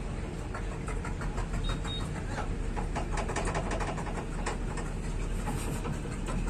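Electric arc welding crackling in a quick, irregular run of clicks, over a steady low hum.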